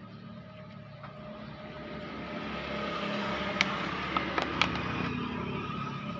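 Water being poured over an overheated Yamaha Vixion motorcycle engine to cool it: a steady rushing noise that grows louder about two seconds in, with a few sharp ticks.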